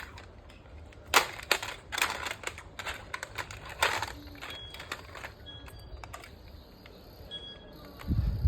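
Microwave popcorn popping inside a running microwave: irregular sharp pops, several close together in the first half and fewer later, over the oven's steady low hum. A low thump comes near the end.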